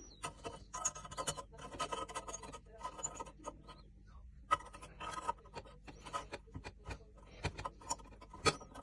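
Irregular scraping, rubbing and small clicks of hand work on gas boiler parts during a service, over a faint steady low hum.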